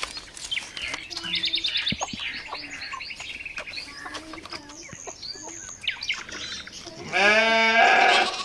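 Small birds chirping in quick high twitters, with scattered short animal calls. About seven seconds in comes a loud animal call lasting about a second.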